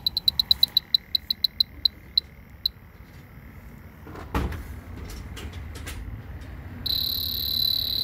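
H10 Pro electronic refrigerant leak detector beeping: a fast run of short high beeps that slows and stops about three seconds in, a few handling knocks, then a continuous high-pitched tone for the last second.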